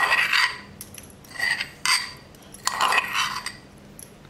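Steel spoon scraping and clinking inside a small metal mortar as ginger and green chili paste is scooped out: several short scrapes with a faint metallic ring.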